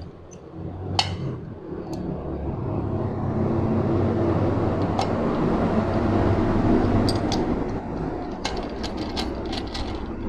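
Sharp metal clicks of transmission gears and shafts being set into a Honda CG125 crankcase half, coming thick and fast near the end. Under them runs a low rumble that swells for several seconds and then eases; it is the loudest sound.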